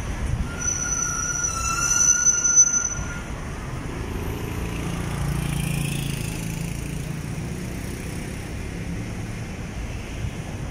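Street traffic noise: a steady hum of passing vehicles. There is a high-pitched whine over the first three seconds and a low engine rumble that swells from about four to seven seconds in.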